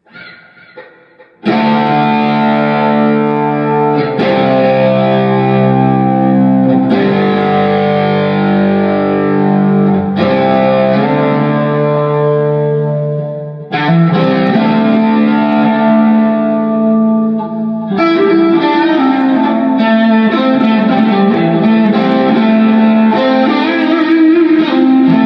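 Electric guitar, a homemade Frankenstrat tribute with a Floyd Rose 2 tremolo, played with an 80s distorted tone through a Fractal amp modeler. Sustained distorted chords start about a second and a half in, with a brief break partway through, and the last third turns to bending, wavering notes.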